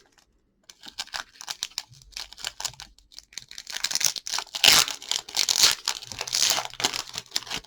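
Foil wrapper of a 2020 Panini Chronicles football card pack being torn open and crinkled by hand, in irregular crackles that get loudest about halfway through as the foil is ripped apart.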